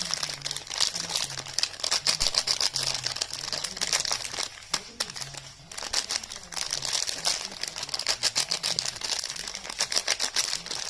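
Dense, crackling crinkle of soap wrappers and packaging being handled and unwrapped, easing off briefly about halfway through.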